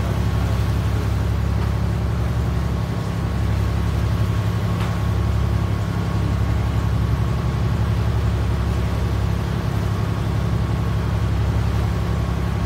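Tour boat's engine running steadily underway: a low, even drone with a faint steady whine above it.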